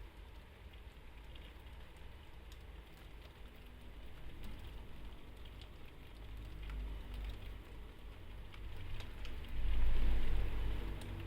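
Rain on a window with scattered ticks of drops striking the glass, over a low rumble of city traffic that swells twice, loudest near the end.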